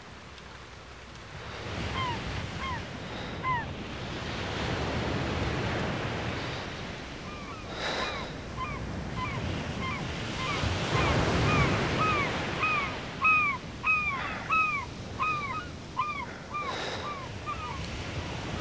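Sea surf on a rocky shore, swelling and easing, with a bird giving a run of short, arched calls, about two a second, growing louder through the second half.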